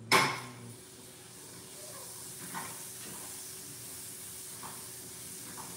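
A slab of butter going into a hot frying pan: a sudden loud sizzle as it goes in, settling into a steady hiss as it melts. A faint steady hum sits beneath.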